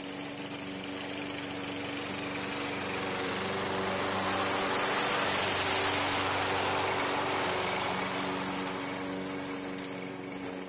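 Walk-behind gas lawn mower engine running under load while mowing grass, growing louder as the mower passes close by about halfway through and then fading as it moves away. The engine is burning a tank of gasoline treated with Sea Foam motor treatment to clean the carburetor and combustion chamber.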